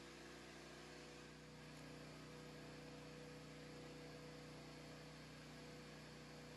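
Near silence: a faint, steady hum over a light hiss.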